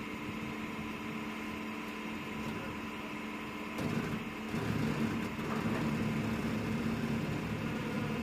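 Engine running steadily inside an aircraft cargo hold, a constant hum with a low rumble that grows louder about four seconds in.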